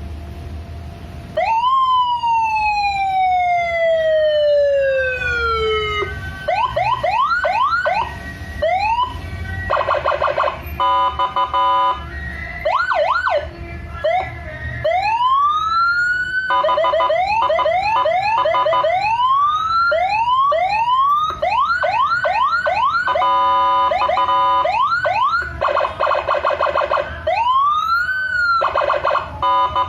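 CJB200W electronic vehicle siren with Senken tones, cycling through its patterns. About a second and a half in comes one long falling wail. After that it switches among fast rising yelp chirps, steady stepped multi-tone blasts and slow rising wails.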